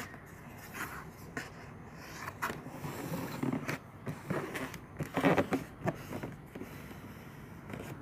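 A Skechers Go Walk 5 shoe and its cardboard shoebox being handled: irregular rustling and scraping, loudest a little past the middle.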